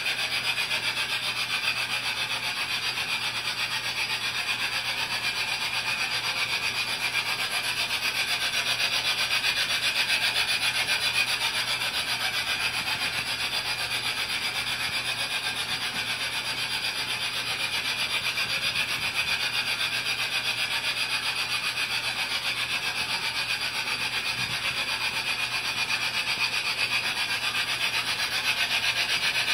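LGB G-scale model trains running on overhead shelf track, a steady rasping mechanical sound that goes on without a break.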